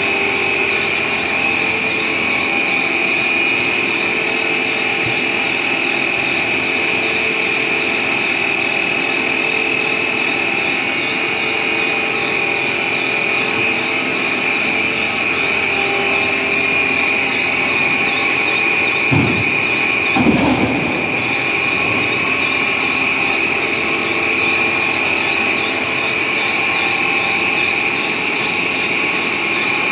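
A 2400 mm stretch film rewinding machine running steadily with a constant high whine. A brief knock and rustle come about two-thirds of the way through.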